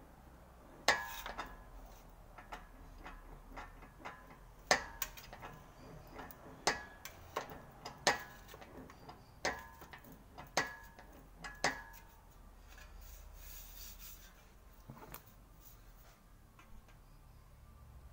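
Sheet-metal quarter panel being worked through an English wheel: a series of sharp metallic clanks, each with a brief ring, about one a second. They stop about twelve seconds in, leaving faint rubbing.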